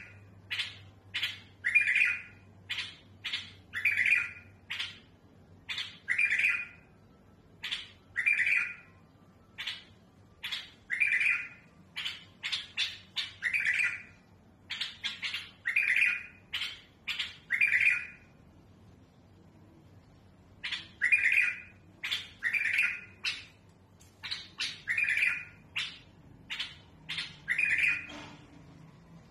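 Bulbul singing a rough-voiced song in repeated bursts of short, sharp notes, with a pause of about two seconds a little past the middle. It is the kind of song kept to tutor young bulbuls.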